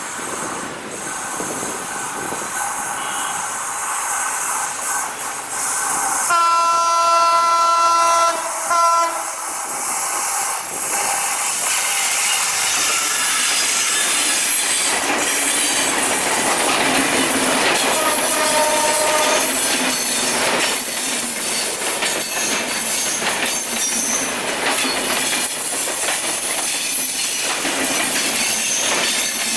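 EMD GT42ACL diesel locomotive's air horn sounding a long blast about six seconds in, with a short break before it ends, and a shorter blast about two thirds of the way through. Meanwhile the passenger train rushes close past, wheels clattering over rail joints and squealing through the curve, the noise building and then staying loud.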